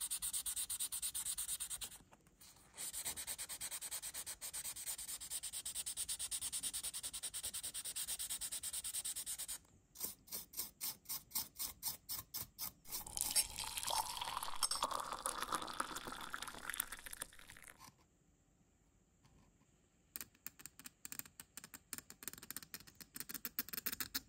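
Plastic model car body being sanded by hand with a small sanding pad: rapid back-and-forth rubbing in long runs, with brief pauses and a stretch of slower, separate strokes. Near the end come quick, light scrapes of a hobby knife along the body's edge.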